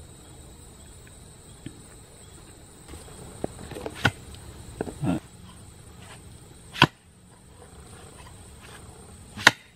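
A mattock striking stony clay soil as the surface is cleared before digging: three sharp strikes, each about two and a half seconds apart, the last two the loudest, with a few lighter knocks and scrapes in between.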